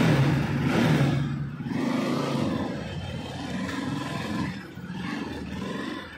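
Motorcycle engine running and revving as the rider moves off, loudest in the first second or two and then settling, with wind noise over the microphone.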